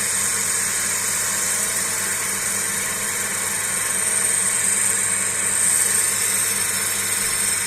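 Wood lathe running with a roughing gouge cutting shavings from the spinning log: a steady, even hiss over the motor's low hum.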